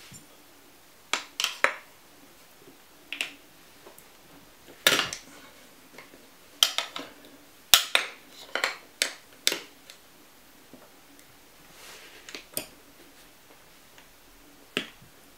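Metal Hercules tyre levers clinking against each other and the scooter wheel's rim while a solid rubber tyre is levered onto it. The clinks are sharp and irregular, some coming in quick groups of two or three.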